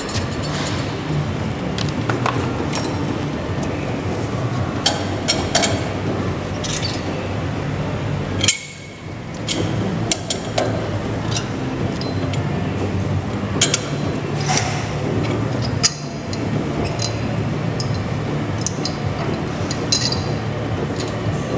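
Scattered metallic clicks and clinks of tools and fittings as a fire-suppression pipe fitting is opened to remove the flow switch, over a steady low mechanical hum. The sound drops out briefly just after a loud click about eight seconds in.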